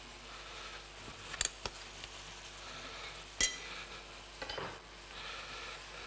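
Kitchen utensils clinking against bowls and board: a few sharp clicks, the loudest about three and a half seconds in. Under them runs a faint steady sizzle from sliced kohlrabi sautéing in butter in a frying pan.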